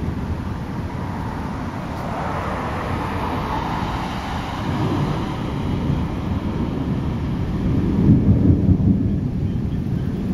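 Thunder rolling in a long low rumble that swells again about eight seconds in.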